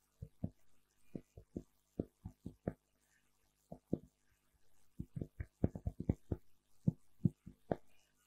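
Irregular soft thumps and bumps through the PA microphones, the knocks of microphones being handled and adjusted on their stands, sparse at first and coming thick and fast after the middle. A faint steady electrical hum lies underneath.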